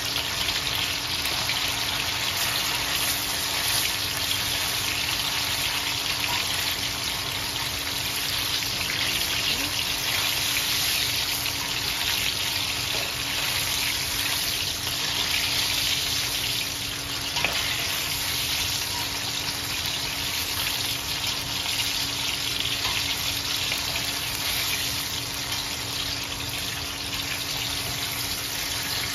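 Coated chicken wings deep-frying in hot oil, a steady sizzle.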